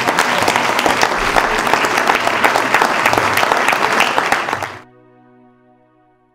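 Audience applauding, a dense clatter of many hands clapping that cuts off abruptly near the end, leaving a faint held music chord that fades out.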